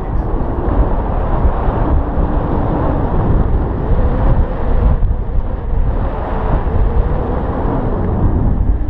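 Steady rush of wind buffeting the microphone in flight under a tandem paraglider, loud and unbroken.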